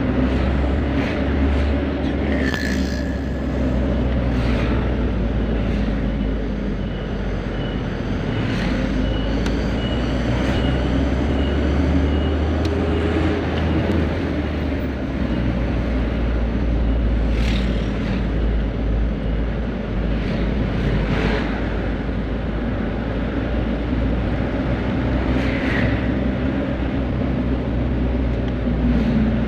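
Isuzu Elf minibus diesel engine running on the road: a steady low drone with road noise and a few short knocks scattered through it.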